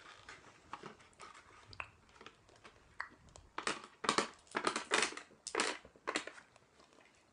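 Crunching noises from hard candy being eaten close to the microphone: faint at first, then a quick, irregular run of about seven short crunches in the second half.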